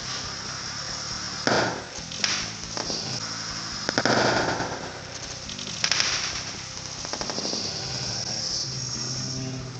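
Sodium metal reacting with the water inside a watermelon: a continuous fizzing, crackling hiss of the spraying sparks, broken by sharp bangs about one and a half, two and a quarter, four and six seconds in, the loudest about four seconds in.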